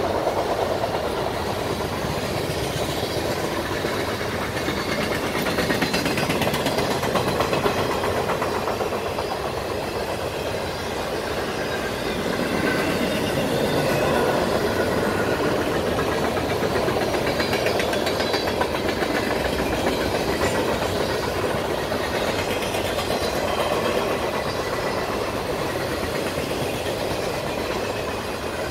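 Railroad cars of a passing train rolling by on the track, a steady rumble without let-up.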